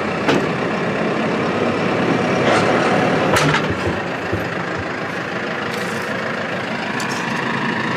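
Large four-wheel-drive tractor's diesel engine idling steadily, with a few sharp knocks about three seconds in.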